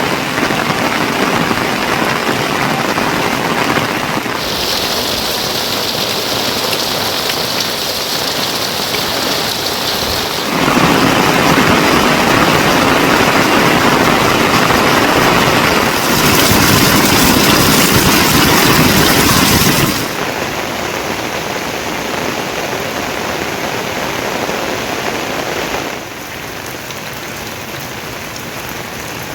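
Heavy rain falling, a steady hiss. Its loudness and tone change abruptly five times, every four to six seconds.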